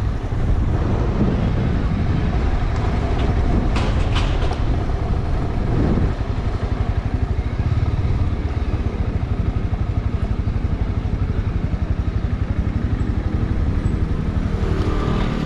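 Honda CB300R's single-cylinder engine running steadily while riding, under an even rush of wind and road noise, with a couple of brief clicks about four seconds in.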